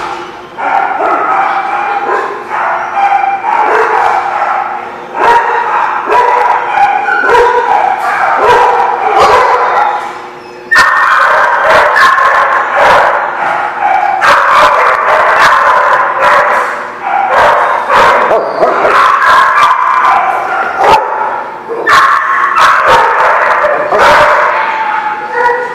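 Several dogs barking and yipping over one another, almost without pause, with some whining among the barks. There are brief lulls about half a second in and again around the middle.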